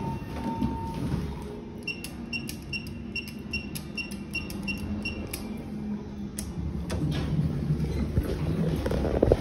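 Elevator car running with a steady low rumble. A short electronic tone ends about a second in, then a run of about ten short high beeps, roughly three a second, sounds for about three seconds.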